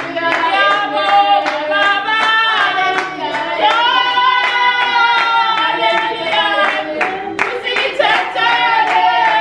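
A small group of women singing together and clapping their hands in a steady rhythm.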